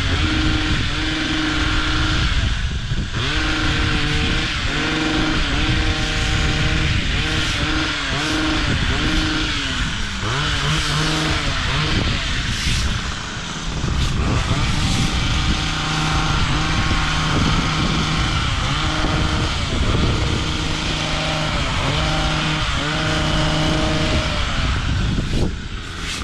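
An engine running continuously, its pitch holding, then stepping up and down several times.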